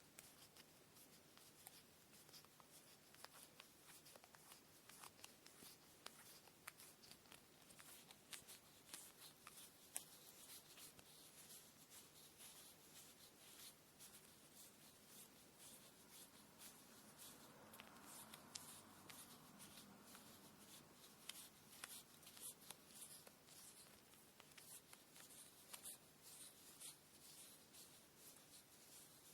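Faint rustling and many small, quick clicks of cotton thread being handled for kumihimo braiding, with a softer, duller swell of sound about two-thirds of the way through.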